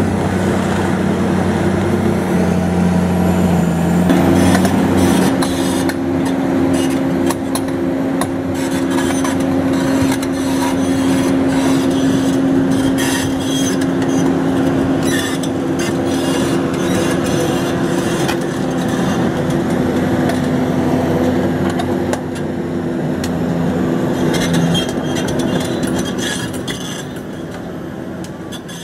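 Liebherr R954C demolition excavator running steadily, its engine note stepping up about four seconds in, with many sharp clanks and clicks over it; the sound fades out near the end.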